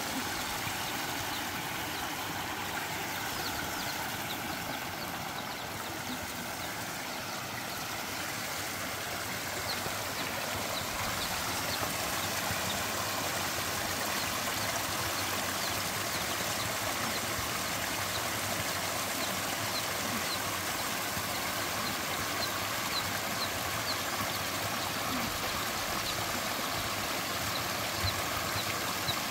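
A small mountain spring trickling and splashing down over rocks into a shallow pool, a steady rush of water.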